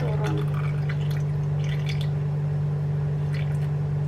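Water chestnut flour batter trickling and dripping through a mesh sieve into hot sugar syrup, with a few scrapes of a spoon in the sieve. A steady low hum sounds throughout.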